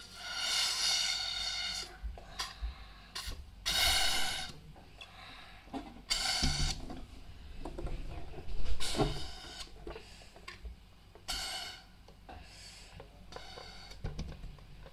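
Breath blown through a plastic drinking straw into a rubber balloon, inflating it in a series of hissing puffs: a long first blow, then shorter ones every two to three seconds with pauses for breath.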